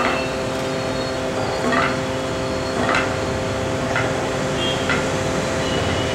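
Kathakali stage accompaniment: a steady drone of several held tones with a few short, sharp percussion strikes about a second apart.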